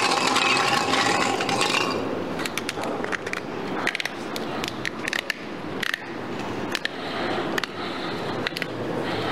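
Small hard draw balls clicking and rattling against each other and their container as they are shuffled and picked out, with many sharp ticks and scrapes from about two seconds in. At first a hum of background voices.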